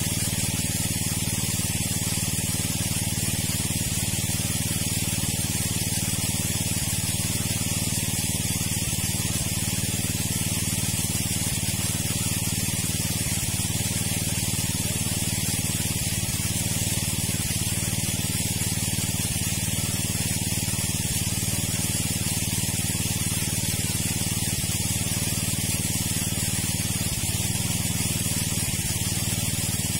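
Engine-driven water pump running steadily while it drains the pond, its motor drone mixed with a continuous hissing rush of water.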